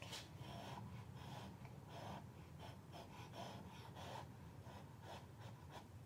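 Quiet room with a low steady hum and a scatter of faint, short breathy sounds and small clicks.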